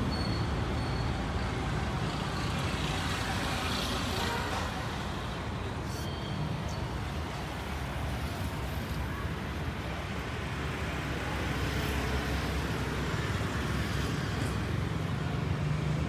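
Steady street traffic noise: a continuous rumble of vehicle engines and tyres, swelling a little twice as vehicles go by.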